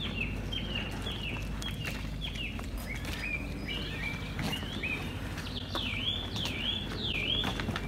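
A songbird singing from the trees: a quick run of short, sharp falling notes, turning into a few longer swooping notes near the end, over a steady low outdoor background.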